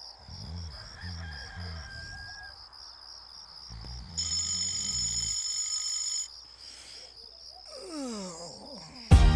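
Sound-effect intro of a hip hop track: crickets chirping over low repeating thuds, a bell ringing steadily for about two seconds midway, then a rooster crowing in falling glides, before the beat comes in loudly near the end.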